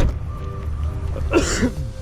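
A person gives a short throat clear about a second and a half in, over a steady low hum.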